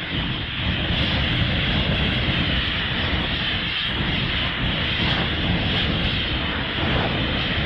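Gamera's jet-flight sound effect from the Showa films: a steady, loud, jet-like roar that runs on without a break.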